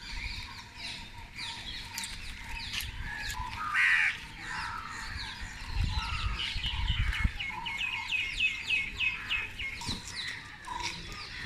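Birds calling all around: crows among them, and smaller birds chirping. Near the middle there is one louder call, and later a fast run of short repeated notes, about five a second.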